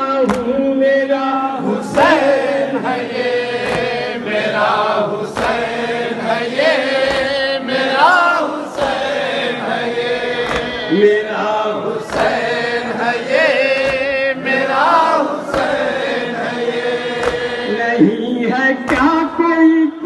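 Men chanting a nauha, an Urdu Shia lament, with the group voices together. Sharp slaps of matam (hands beating on chests) keep a steady beat about once a second.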